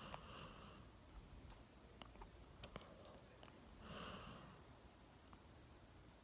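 Golden retriever snoring faintly in deep sleep: one snoring breath tails off at the start and another comes about four seconds in, with a few faint clicks between.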